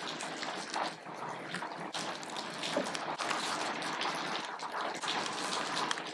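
Crinkling and rustling of SIGA Fentrim IS 20 adhesive tape as its paper backing is peeled away and the tape is pressed and smoothed onto the window frame by hand, with many small irregular crackles.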